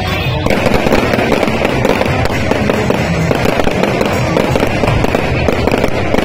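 Fireworks going off in a dense, continuous barrage of bangs and crackles, which thickens about half a second in.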